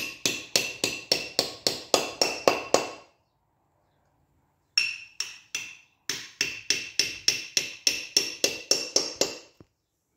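Hammer tapping a socket to drive valve stem oil seals onto their seats in a MAN truck cylinder head. Quick metallic taps come about four a second with a ringing note. One run stops about three seconds in, and after a pause two taps and then a second run follow, stopping near the end.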